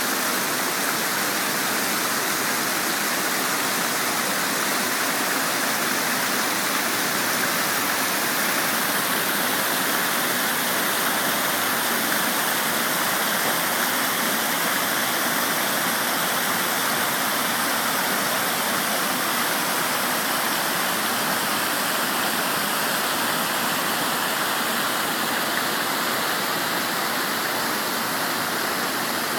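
River water rushing: a steady, even roar of flowing water that does not change.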